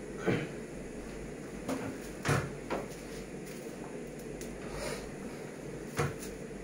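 A handful of short knocks and bumps from objects being handled close to the microphone, the loudest near the start, about two seconds in and near the end, over a steady low room hum.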